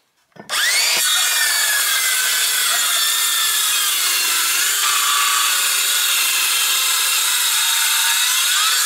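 Makita 18V cordless circular saw starting up about half a second in and cutting through a board with a freshly resharpened tungsten-carbide-tipped blade. The motor's whine dips in pitch in the middle of the cut and then runs steadily.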